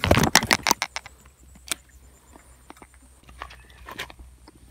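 Reeds and grass rustling and crackling as a hooked striped snakehead is hauled out of the water through the reed bed: a burst of loud rustles in the first second, then scattered crunches of footsteps and handling on a gravel bank.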